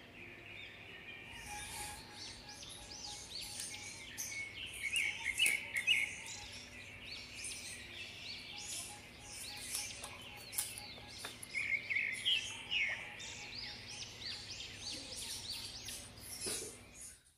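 Small birds chirping and twittering continuously, a dense run of short rising and falling calls.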